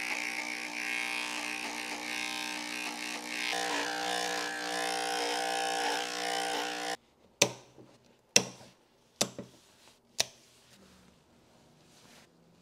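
Electric dog clipper humming steadily as it shaves through a matted coat, its tone shifting a few seconds in, then cutting off. Four sharp snips follow about a second apart: dog nail clippers cutting through toenails.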